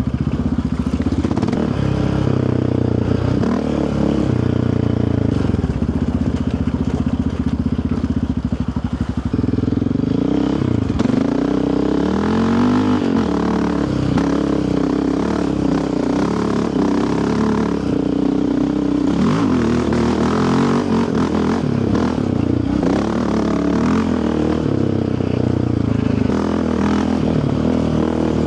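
Yamaha Raptor 700R sport quad's single-cylinder four-stroke engine running under way on a rocky trail, its pitch rising and falling as the throttle is worked on and off.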